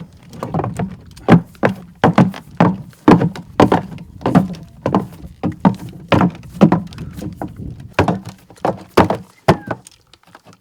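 An irregular series of dull knocks and thuds, two or three a second, stopping near the end.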